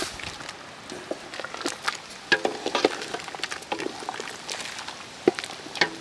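Scattered clinks and knocks of metal cooking pots and utensils, a few of them ringing briefly, with the sharpest knock a little after five seconds in.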